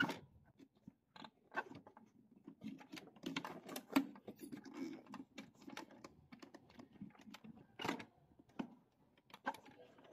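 Irregular light plastic clicks, taps and knocks, a few of them louder, as the plastic scanner unit of an Epson L3110 printer is handled and fitted back onto the printer body.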